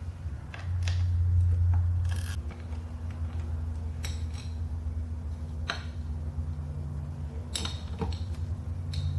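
Metal tools and screws clinking in short, scattered clicks while the Torx screws of a Harley-Davidson primary cover are worked loose, over a steady low hum.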